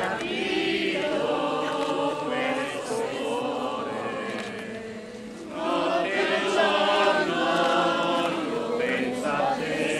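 Crowd of worshippers singing a hymn together, many voices at once. The singing dips about halfway through and comes back louder.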